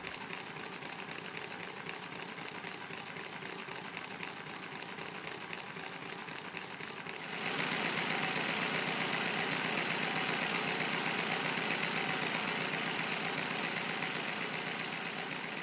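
Handbuilt miniature W32 model engine running on compressed air: a fast, even mechanical clatter that gets louder about seven seconds in.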